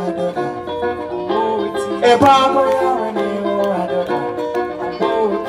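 Live acoustic music: a plucked string instrument picking out a melody.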